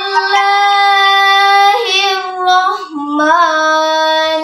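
A young girl's voice reciting the Quran in a melodic chant (tilawah), holding long, drawn-out notes. The pitch steps down a little about three seconds in.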